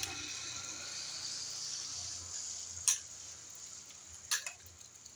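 Two sharp clicks from handling a break-barrel-style air rifle, about three seconds in and again about a second and a half later, over a faint steady hiss.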